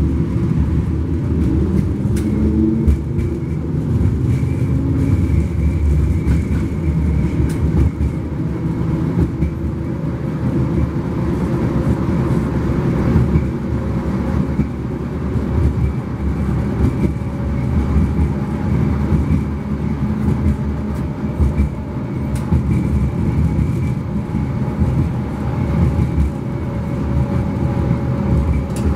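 71-134K (LM-99K) tram running between stops, heard from inside: a steady rumble of wheels on the rails with a faint, even whine over it.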